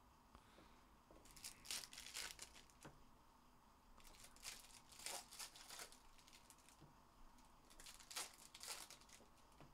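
Faint crinkling and tearing of plastic trading-card pack wrappers being opened, in three short spells.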